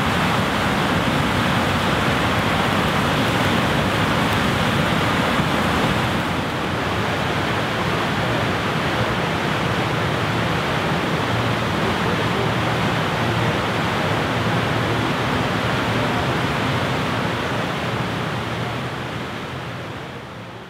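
Waterfall on a river swollen with spring meltwater, rushing steadily, then fading out over the last few seconds.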